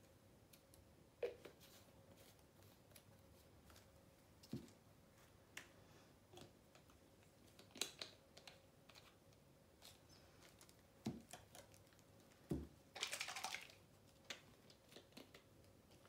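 Near silence with a faint steady hum, broken by scattered small clicks and taps and a brief rapid clicking rattle about thirteen seconds in.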